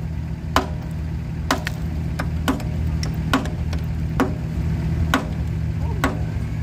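Sledgehammer striking a steel drift against the bucket pin of a Doosan 207 excavator's bucket linkage, driving the pin during a bucket change. Seven sharp metallic blows land about one a second, over a steady low engine hum.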